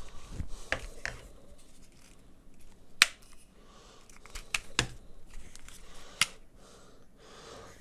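Plastic handling noise from a folding gimbal selfie stick being worked by hand, with a few sharp clicks from its joints and fittings. The loudest click comes about three seconds in, and others follow near five and six seconds.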